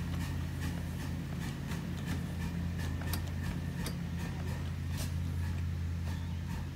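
Cars of a ride-on scale model freight train rolling slowly past, their wheels clicking over the rail joints a few times a second over a steady low hum.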